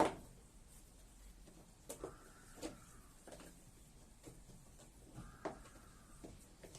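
Scattered light clicks and knocks of hands and tools working on a washing machine's parts, the loudest right at the start, with two faint short whistle-like tones in between.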